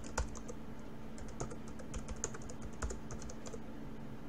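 Typing on a computer keyboard: an irregular run of key clicks as a command is typed at the terminal, stopping about three and a half seconds in.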